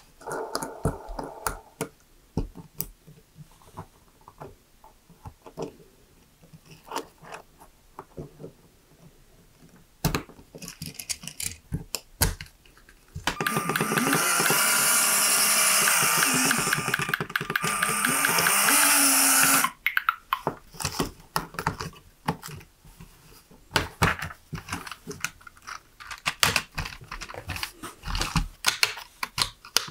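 LEGO Technic pieces clicking, snapping and rattling as they are fitted together by hand, in many short separate clicks. About halfway through, a louder continuous whirring noise runs for about six seconds, with a brief break in the middle.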